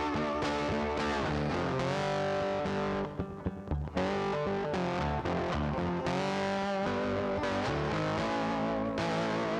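Background music led by distorted electric guitar with sliding notes and bass, with a brief drop-out about three seconds in.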